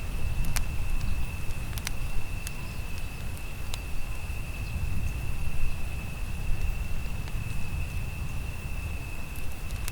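Campfire crackling with a few sharp pops, over a low steady rumble, while an insect keeps up one unbroken high-pitched trill.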